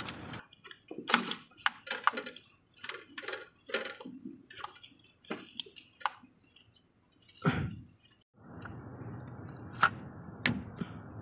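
Irregular clicks, clinks and knocks of hands and metal tools working on the starter motor of a Mahindra Maxximo, with one duller thump about seven and a half seconds in. After that a steady background hiss sets in, with two sharp clicks.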